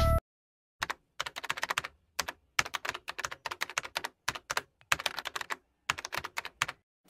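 Computer keyboard typing: quick runs of key clicks with short pauses between them.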